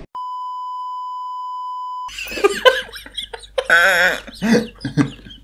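A steady, high-pitched bleep tone, the classic censor beep, runs for about two seconds and cuts off abruptly. Then a man and a woman burst out laughing.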